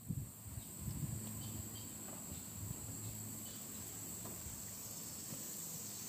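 Steady high-pitched insect chorus with a low hum underneath and a few faint short chirps in the first half.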